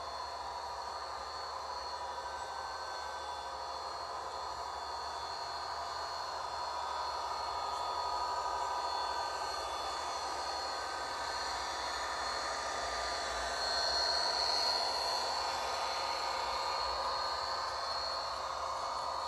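Model Amtrak F40PH diesel locomotive and its passenger cars running along a model railway, a steady whining hum that grows louder as the train approaches, peaks about fourteen seconds in as it passes close by, then eases.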